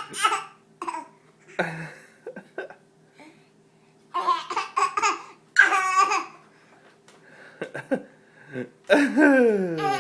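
A baby laughing in several bursts, the strongest about four to six seconds in and near the end, set off by a man burping.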